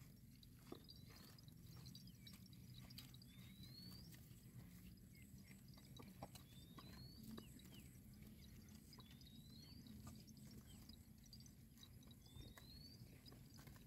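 Near silence in a pasture: faint soft clicks of cattle grazing, with a bird's short rising whistle repeated about every three seconds, five times.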